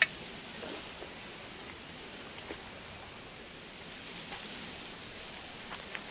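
Steady rustling hiss of wind through riverside reeds and grass, with one sharp click at the very start and a few faint ticks.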